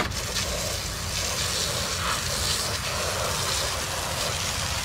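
Garden-hose water jet from a Radiator Genie spray wand hitting an ATV's wheel and the grass: a steady hiss of spray over a low rumble, as the cleaner is rinsed off.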